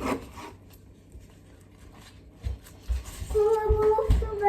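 Knife cutting raw chicken into strips on a cutting board, a few dull thumps. About three seconds in, a high held tone with overtones comes in for just over a second and is the loudest sound.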